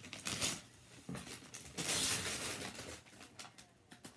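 Wrapping paper being torn off a gift box in several rips with crinkling between them. The longest and loudest rip comes about two seconds in, and the rustling is quieter after that.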